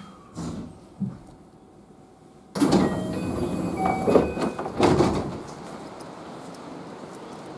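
Train's sliding passenger doors opening at a station stop, with a sudden rise of noise about two and a half seconds in and a few knocks and short tones. Steady noise of the standing train follows.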